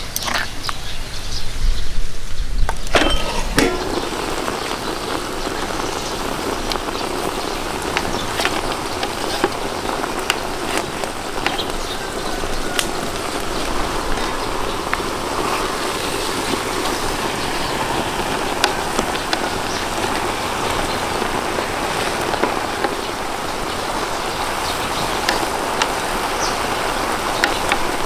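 Food frying in hot oil: a steady sizzle with scattered small crackles and pops that swells about three and a half seconds in.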